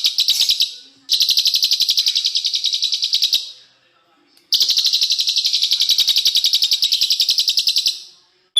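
Small songbird singing fast, dense trills of rapidly repeated high notes, about ten a second, in three bouts: one fading out in the first second, one from about one to three and a half seconds in, and a longer one from about four and a half seconds to near the end.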